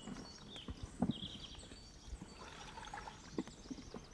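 A knife scoring a ring around a willow stick's bark, heard as a few soft knocks and scrapes, the strongest about a second in. Birds chirp repeatedly in the background.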